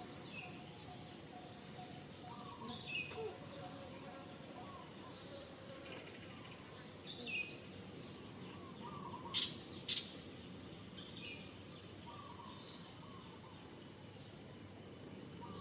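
Birds chirping over and over in short calls, over a steady background hiss. Two sharp clicks come a little past halfway.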